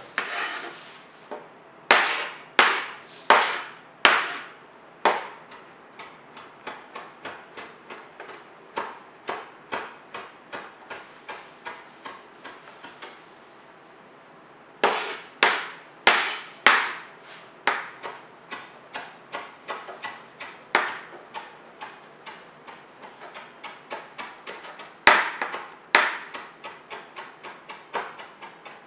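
Sharp knocks on a hard surface in three runs. Each run opens with a few heavy strikes and goes on with lighter, quicker ones, about two or three a second.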